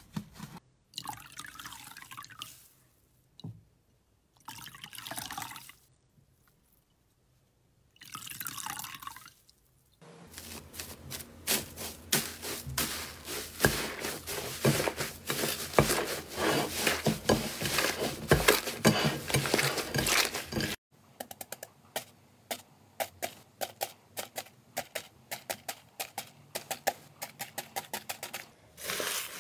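Hands squeezing and kneading slime, with wet, sticky squelches and crackling pops. There are short spells of sound with quiet gaps between them for the first third, then a dense stretch of crackling. In the last third come sharper, separate clicks and crunches as the foam beads in the slime are pressed.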